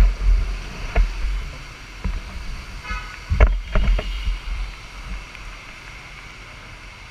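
Wind buffeting the microphone of a camera on a moving motorbike, over a steady hiss of wet-road traffic, with a short horn beep about three seconds in. The gusts die away for the last couple of seconds as the bike slows to a stop.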